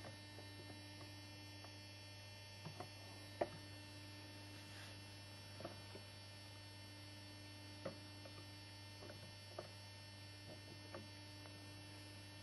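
Low steady electrical mains hum over faint room tone, with a few small scattered clicks, the loudest about three and a half seconds in.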